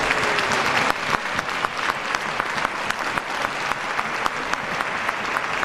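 Members of parliament applauding: many people clapping together in a dense, steady round of applause.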